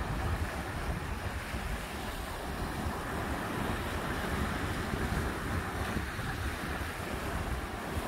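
Sea surf washing steadily on the shore, with wind buffeting the microphone.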